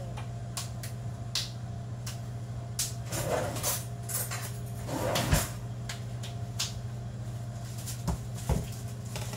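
Kitchen handling noise: a refrigerator door and cupboards being opened and shut, with scattered clicks and knocks of jars and containers on the counter, over a steady low hum. The loudest knock comes about five seconds in, and two sharp knocks come near the end.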